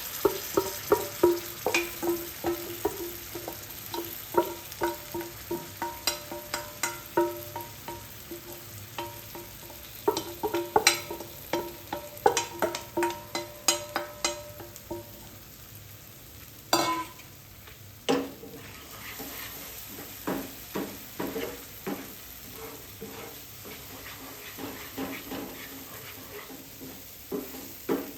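Spatula stirring food frying in a metal pan: rapid clacks and scrapes, the pan ringing at the same pitches with each knock, over a steady sizzle. After about 18 seconds the knocks loosen into duller stirring clacks.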